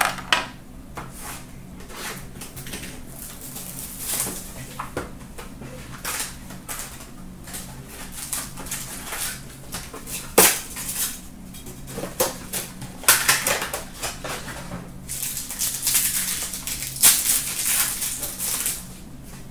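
Hands opening a box of 2017-18 Upper Deck Ice hockey cards and handling its packs: short scrapes and clicks of cardboard and packaging, with denser bursts of crinkling wrapper in the second half.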